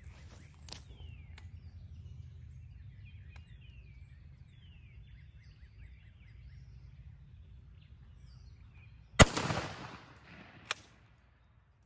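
A 12-gauge shotgun fires a single 3-inch lead turkey load about nine seconds in: one loud shot whose echo trails off over about a second, followed by a sharp click a second and a half later. Before the shot, birds chirp faintly over a low steady rumble.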